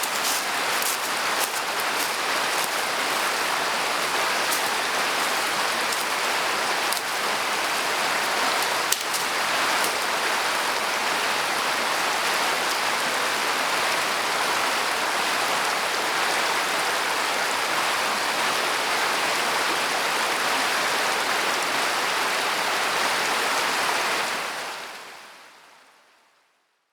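Steady rush of water, with a few sharp ticks in the first seconds, fading out over the last two seconds.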